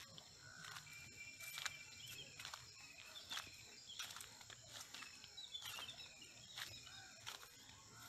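Faint footsteps of someone walking on soil and grass, a step about every second, with small birds chirping now and then in the background.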